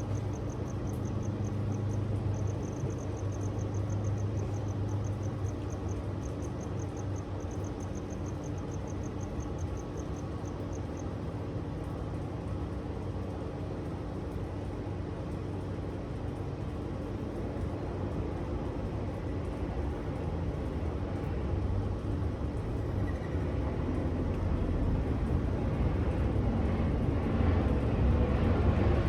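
Outdoor ambience with a steady, distant engine drone that swells over the last few seconds as it comes nearer, like an aircraft approaching. A fast, even high ticking runs through roughly the first ten seconds.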